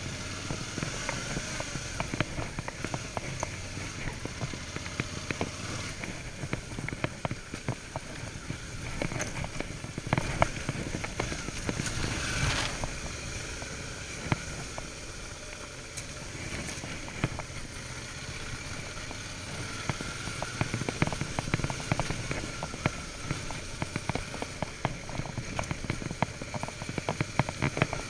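Suzuki V-Strom 650's 645 cc V-twin running as the motorcycle is ridden on an unpaved trail, under a constant crackle and ticking of gravel and stones under the tyres.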